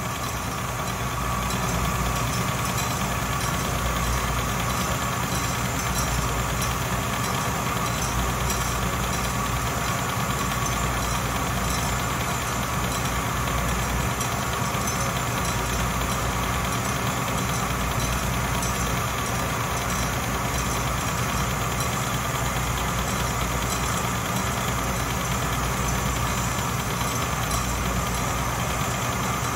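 Atlas metal lathe running steadily while a boring bar with a carbide chip-breaker insert takes a deep boring cut in cold-rolled steel hex stock: an even mechanical hum with a steady tone above it, unchanging throughout.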